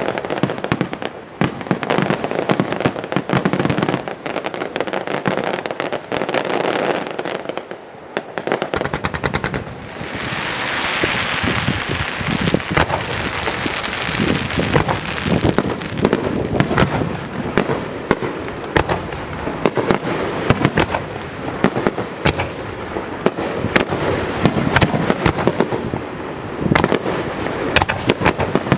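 Starmine fireworks barrage: aerial shells launching and bursting in rapid succession, dense overlapping bangs. About ten seconds in comes a few seconds of hissing crackle.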